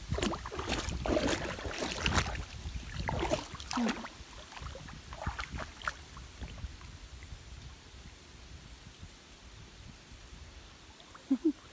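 Splashing and sloshing of wading through shallow creek water, busiest in the first few seconds, then sparser. A short squeak near the end.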